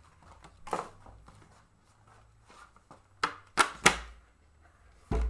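Swats at a fly: a sharp slap, then three quick slaps in a row about three seconds in, then a heavier, deeper thump near the end.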